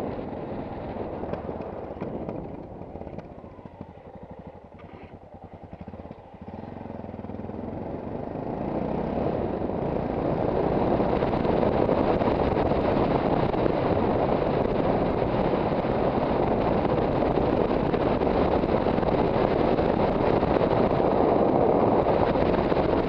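Yamaha XT660Z Ténéré's single-cylinder engine running under way, with wind noise on the helmet-mounted microphone. It is quieter for a few seconds early on, then engine and wind noise build as the bike picks up speed and stay loud and steady from about ten seconds in.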